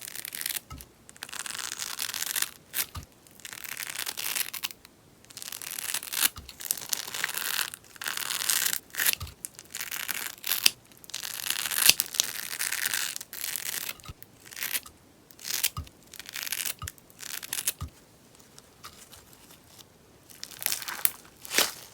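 Beeswax sponge slime crackling and popping as it is worked by hand, in irregular bursts of crisp snaps and tearing crackle with short pauses between them, and a quieter spell shortly before the end.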